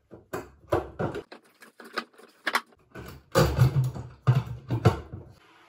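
Phosco P350 street lantern's metal canopy being twisted and jiggled on its base to lock it in place: an irregular run of clunks, knocks and rattles, the heaviest a little past the middle. It stops abruptly near the end.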